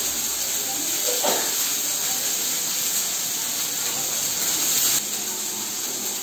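Brinjal (eggplant) slices frying in hot oil in a steel kadhai: a loud, steady sizzle that eases slightly about five seconds in.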